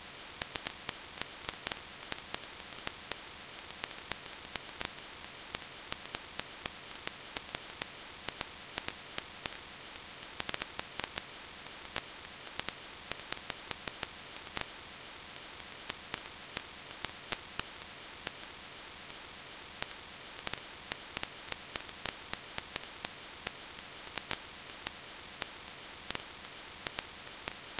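Steady static hiss with frequent, irregular crackling clicks.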